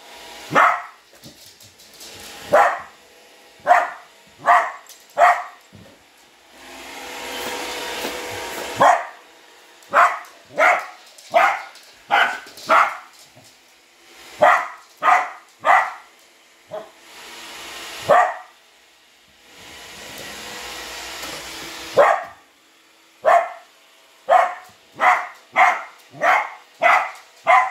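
A dog barking repeatedly at a Roomba robot vacuum, in runs of short sharp barks about one to two a second. Between runs the robot vacuum's whooshing rises for three stretches of a few seconds each.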